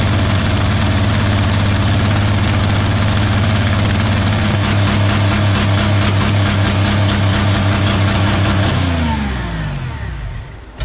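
Car engine with a cut exhaust, held wide open while running on vegetable oil instead of engine oil, runs loud and steady, then dies about nine seconds in, its pitch falling as it winds down to a stop. The owner believes it shut itself down from overheating. A single sharp click comes right at the end.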